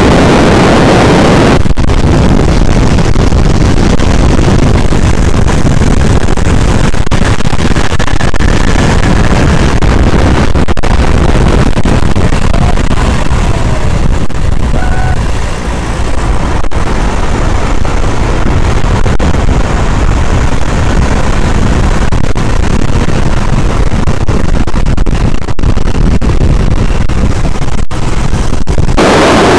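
Loud, steady wind rush and buffeting on the microphone in the open cockpit of a Tiger Moth biplane in flight, with the aircraft's engine running beneath it. The noise dips briefly about halfway through, then returns.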